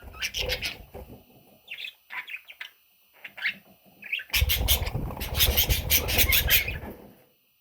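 Baby budgerigars chirping in short scattered calls. About four seconds in, a loud stretch of rapid chirping starts over a heavy low rustle, and it stops near the end.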